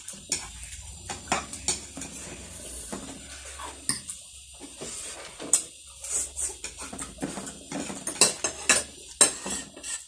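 Metal fork and spoon and chopsticks clinking and scraping against ceramic plates and bowls, many sharp clinks at uneven intervals, the loudest near the end, with slurping of instant noodles in between.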